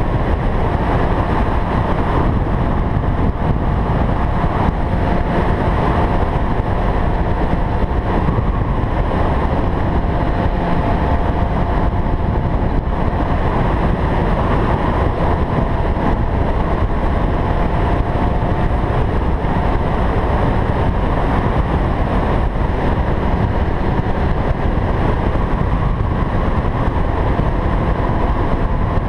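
Honda CBR600RR sport bike's inline-four engine running at a steady cruise, mixed with heavy wind and road rush on the bike-mounted camera's microphone. There are no big revs or gear-change surges.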